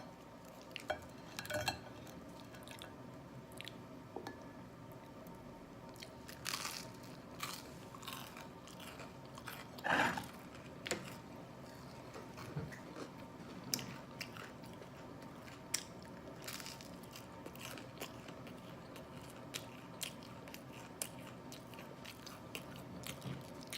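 A person chewing and biting waffles with mouth open: wet lip smacking and small mouth clicks scattered throughout, with one louder mouth sound about ten seconds in.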